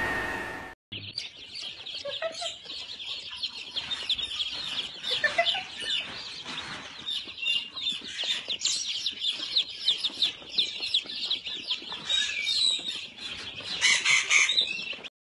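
A crowd of birds chirping and peeping, short high calls overlapping thickly. It starts abruptly about a second in and stops just as suddenly near the end.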